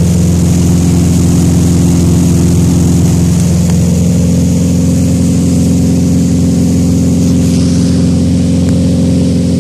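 Tow boat's engine running at a steady drone, with the hiss of the churning wake water over it.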